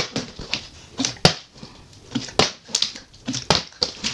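Plastic water bottle handled and flipped onto a laminate floor: a run of short, sharp plastic knocks and clicks, about three a second and unevenly spaced.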